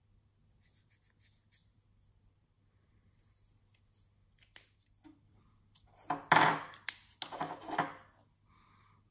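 Small steel parts being handled on a workbench: two short bursts of scraping and clicking of metal, over a faint steady hum.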